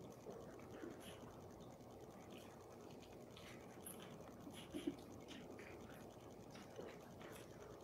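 Near silence: quiet room tone with faint scratching and small clicks of hands handling communion bread and picking up the chalice, one slightly louder click about five seconds in.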